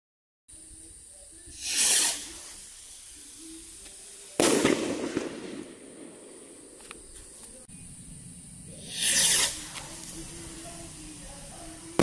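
Two Legacy firework rockets, each launching with a short whoosh and bursting about two and a half seconds later with a sharp bang that trails off; the second bang comes right at the end.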